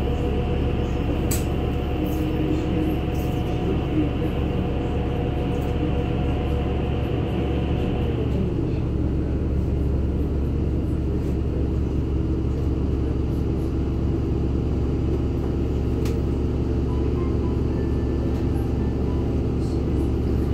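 Inside a NefAZ-5299 city bus under way: the engine and drivetrain run with a steady low hum and a whine that falls in pitch about eight seconds in, as the bus slows or shifts gear. A couple of sharp clicks from the cabin stand out, one near the start and one late on.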